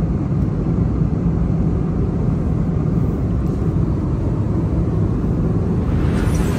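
Steady low rumble of an airliner's jet engines and airflow heard from inside the passenger cabin, with a brief rising hiss near the end.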